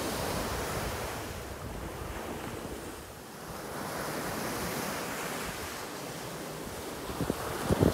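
Small waves breaking and washing up on a sandy beach, the surf easing off and swelling again, with wind rumbling on the microphone, gusting near the end.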